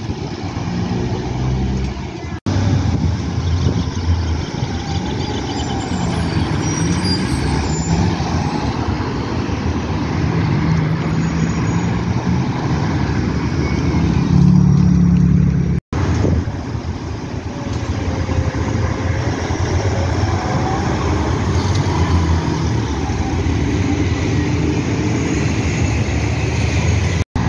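City bus diesel engines running as the buses pull away and drive through street traffic, over a steady traffic rumble. The engine sound is loudest a little past the middle.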